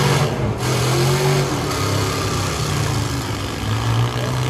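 Several demolition derby vehicles' engines running hard and revving, their pitch rising and falling as they push against each other.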